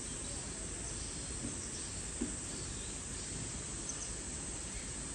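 Steady chirring of insects, with a faint tap about two seconds in.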